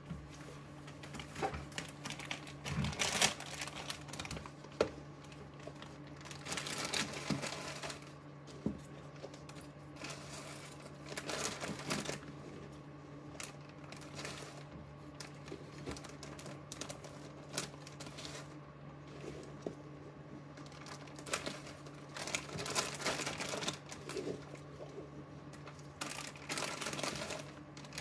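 Clear plastic grow bag crinkling and rustling in irregular bursts as coco coir is scooped into it by gloved hands, with small knocks and clicks. A steady low hum sits underneath.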